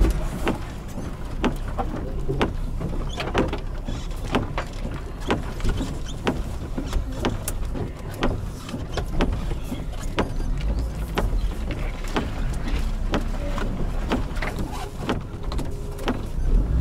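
Lada Niva driving slowly over rough off-road ground: the engine runs low underneath frequent knocks and rattles as the car crosses the uneven track.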